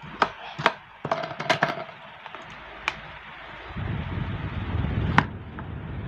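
Sharp plastic knocks and clicks as the telescoping pole of a cheap plastic standing fan is pushed down and its height collar handled, a cluster of them in the first two seconds and single ones near three and five seconds. From about four seconds in a steady low rumble sets in underneath.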